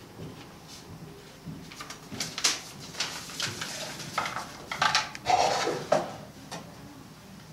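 A wooden cabinet's door and drawers being opened and handled: a run of sharp knocks and clicks with some rustling, starting about a second and a half in and easing off near the end.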